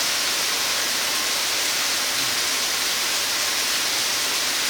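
Waterfall cascading in full rainy-season flow: a steady, even rush of falling water.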